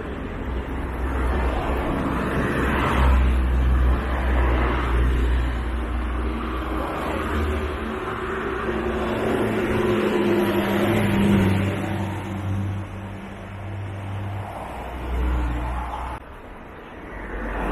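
Road traffic: several cars pass one after another, each one's tyre and engine noise swelling and then fading, with a steady engine hum in the middle.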